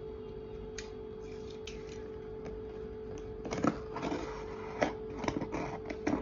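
A speed cube's packaging being handled and opened: scattered rustles, taps and clicks beginning about three and a half seconds in, over a steady faint hum.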